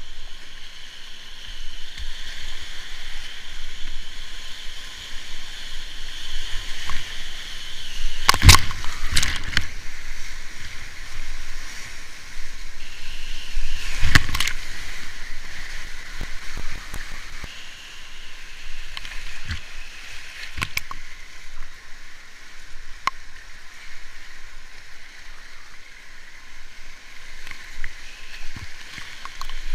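Whitewater rapids of a flooded brown river rushing and sloshing around a kayak. Two loud splashes come about eight and fourteen seconds in, the second as a wave washes over the bow and camera.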